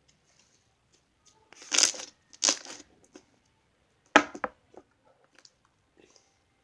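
Slime being pressed through the strings of a tennis racket, giving crackling pops: two longer bursts about two seconds in and a sharp pop a little after four seconds, with small clicks in between.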